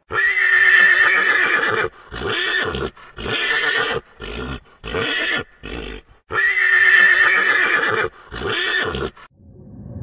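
Loud, pitched animal calls: a long call lasting nearly two seconds, a run of shorter calls, then a second long call about six seconds in and a last short one.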